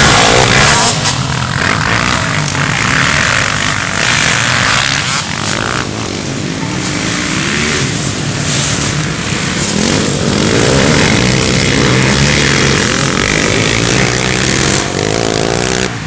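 Several dirt bikes riding around a motocross track, their engines revving up and falling back again and again through the gears as they pass. The nearest bike is loudest in the first second.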